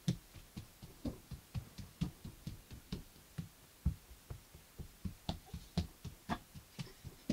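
A toddler's bare feet running on a chipboard floor: light, quick footfall thumps, about three to four a second, with a few sharper slaps in the second half.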